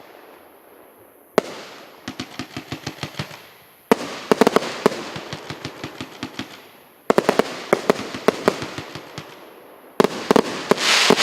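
A 48-shot fireworks cake firing: four volleys about three seconds apart, each a sharp launch bang followed by a rapid string of pops. The last volley, near the end, breaks into a dense crackle.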